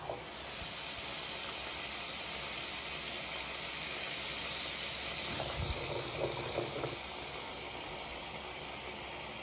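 Water running in a steady hiss, with a few faint knocks about five to seven seconds in.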